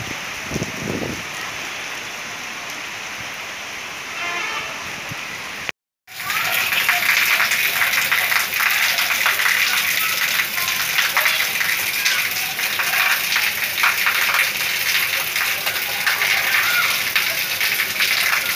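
Rain falling steadily. After a brief break in the sound about six seconds in, it comes back louder and denser, pattering close by.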